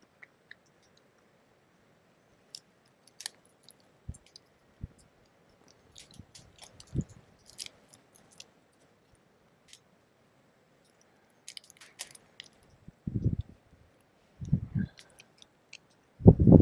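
Cooked mud crab claw shell being cracked and picked apart by hand: scattered sharp clicks and snaps of shell, with a few louder low thuds near the end.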